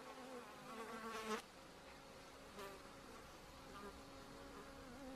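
Near silence: quiet room tone with a faint hum and faint, intermittent voices in the background.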